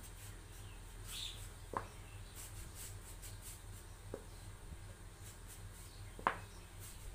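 Paintbrush dabbing and stroking a finish onto the edges of small wooden pieces: a faint, scratchy brushing. Three light clicks of wood and brush handling are heard, the sharpest near the end.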